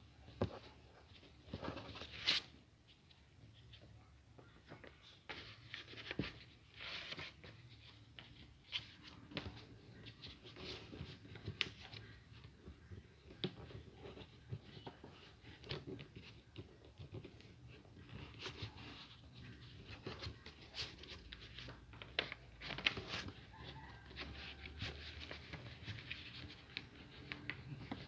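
Sheet of paper being folded and creased by hand: irregular soft rustles and crinkles, with sharper crackles scattered throughout.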